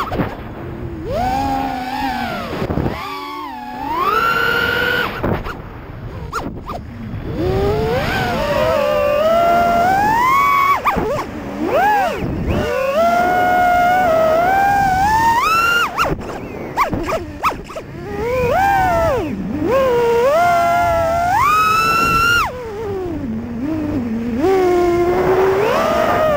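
FPV racing quadcopter's brushless motors whining, the pitch climbing and dropping sharply and often as the throttle is punched and let off.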